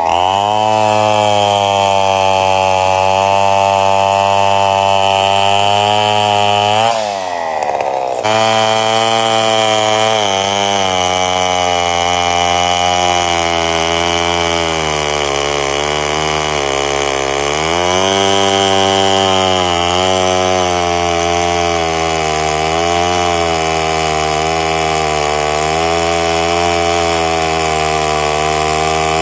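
Two-stroke chainsaw running at high revs. The revs drop briefly about seven seconds in, then pick up again, and the pitch rises and falls as it cuts under load.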